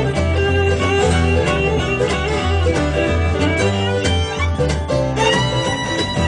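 Bluegrass band playing an instrumental break: plucked guitar over a steady bass line, with a fiddle coming in on long held notes about five seconds in.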